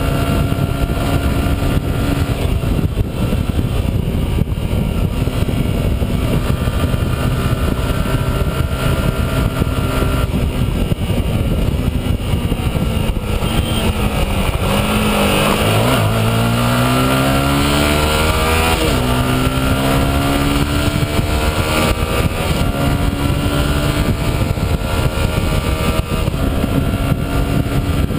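Yamaha R15's single-cylinder four-stroke engine heard from the bike at highway speed, under a strong rush of wind on the microphone. About halfway through the engine note drops as the bike slows, then climbs in pitch through a couple of upshifts as it accelerates, and settles back into a steady cruise.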